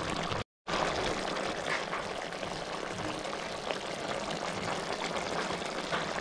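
Coconut-milk chicken curry simmering at a boil: a steady bubbling hiss with a few small pops. The sound cuts out completely for a moment about half a second in.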